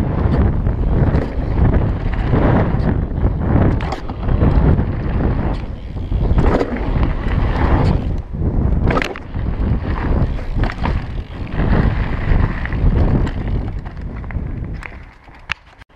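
Wind buffeting the microphone of a rider-mounted camera on a moving mountain bike, mixed with tyres crunching over packed gravel and frequent knocks and rattles from bumps on the track. It goes quieter near the end, with one sharp click.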